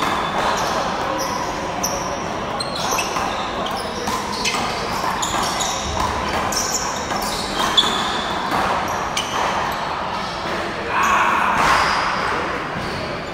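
Handball game in a large echoing hall: the rubber ball smacking the wall and floor in scattered sharp hits, one sharper hit a little before 8 s, with short high sneaker squeaks on the court floor as the players move.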